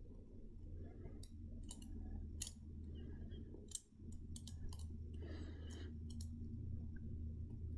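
Metal cuticle nippers snipping at a halved avocado seed, giving a dozen or so sharp clicks at irregular intervals as they trim off its glossy outer layer, over a low steady hum.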